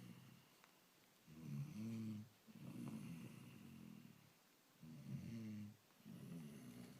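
Lion snoring in slow breaths: low, pitched snores that come in pairs, each about one to two seconds long, with short pauses between, two breath cycles in all.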